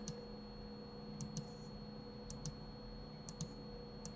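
Computer mouse clicking: a pair of short clicks about once a second, five times, as faces of a 3D model are selected. A faint steady hum runs underneath.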